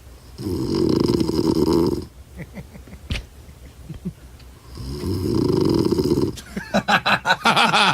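A man's recorded snoring played back: two long, rattling snores a few seconds apart, then a faster, stuttering burst of sound near the end.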